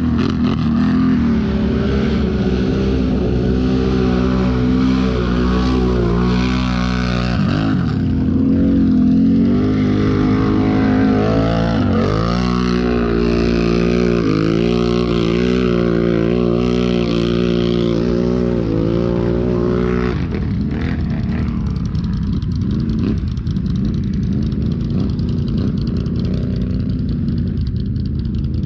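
ATV engine running hard under throttle, its pitch rising and falling, with brief drops around seven and twelve seconds in. After about twenty seconds the engine note falls back and turns rougher and quieter.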